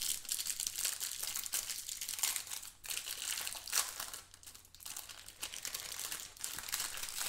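Clear plastic wrapper of a football trading-card pack crinkling and crackling as hands open it and pull the cards out, in a run of small irregular crackles.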